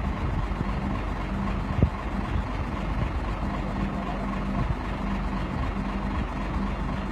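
Mobile crane's engine idling steadily, a low hum coming and going over the drone, with one sharp knock a little under two seconds in.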